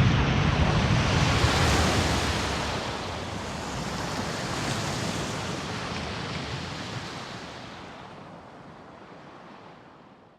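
A dramatic sound effect: a sudden heavy rushing crash with a deep rumble that slowly fades away over about ten seconds.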